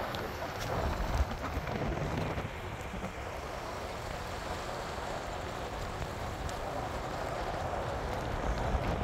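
Wind buffeting a microphone held outside a moving pickup's window, over a steady rumble of tyres on a gravel dirt road.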